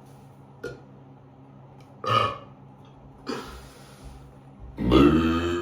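Deliberate deep belching on command: a short burp about two seconds in, then a long, loud belch that starts near the end and carries on.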